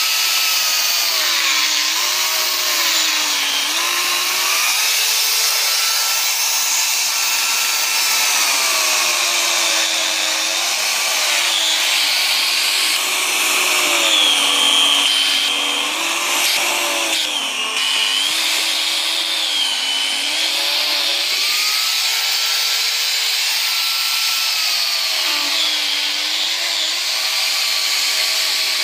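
INTERTOOL DT 2204 corded electric chainsaw running and cutting through a log. Its motor whine drops in pitch several times as the chain bites into the wood, then rises again as the load eases.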